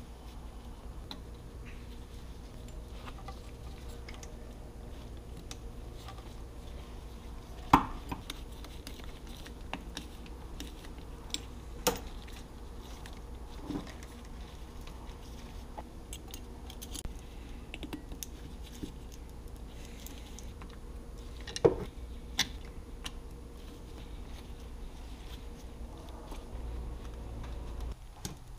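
Scattered clicks and light knocks of hose clamps, a screwdriver and fuel-pump parts being handled as a new fuel filter is clamped onto the fuel pump assembly, over a steady low hum. The sharpest knocks come about eight seconds in and a little past twenty seconds.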